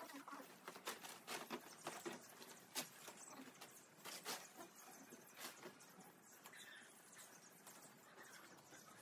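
Faint, irregular clicks, taps and rustles from a nylon dome tent being put up by hand as its poles and fabric are handled. The taps come thickest in the first half and thin out after that.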